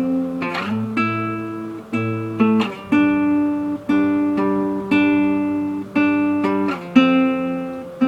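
Acoustic guitar strumming the chorus progression F, A minor, G, with each chord struck sharply and left to ring, about one strum a second.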